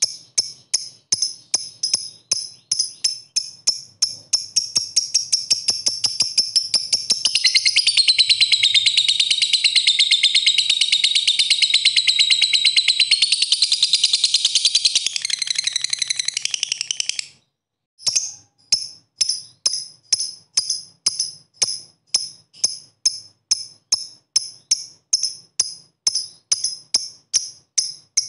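Fischer's lovebird giving rapid 'ngetik' chips, about four a second. From around 7 s the chips run together into one long 'ngekek' trill lasting about ten seconds. The trill cuts off suddenly, and after a short break the chipping starts again.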